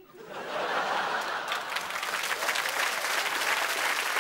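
Large studio audience applauding, swelling over the first second and then holding steady.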